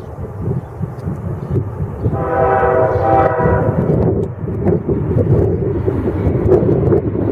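A freight train rumbling past, with a locomotive horn sounding one blast of about a second and a half, about two seconds in.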